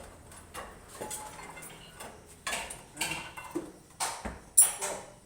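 Irregular metal clinks and knocks of tools and parts being handled, about one a second, the loudest near the end.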